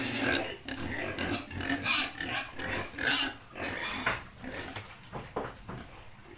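A group of piglets grunting and oinking in short, irregular calls, with a few sharp knocks in the second half.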